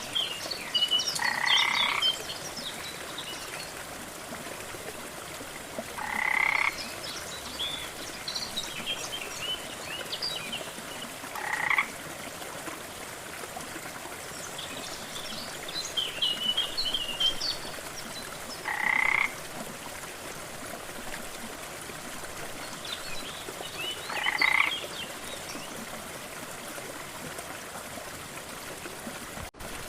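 Frog calls: a short croaking call repeated five times, every five to seven seconds, with faint high chirping between the calls over a steady rush of water.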